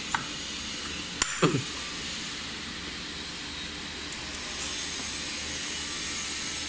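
Steady background hiss with a sharp metal click about a second in and a few light clinks later, from the impeller being pushed onto the rotor shaft and clamped in a steel fixture.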